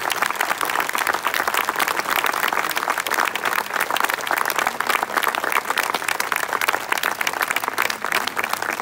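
Audience applauding steadily: many hands clapping densely at once.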